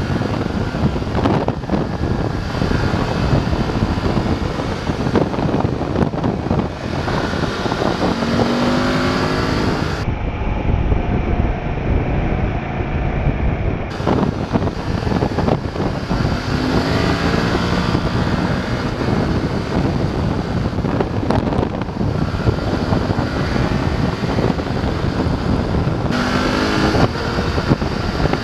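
BMW F850 GS motorcycle's 853 cc parallel-twin engine accelerating through the gears, its pitch rising several times with short breaks between rises, under heavy wind rush on the microphone.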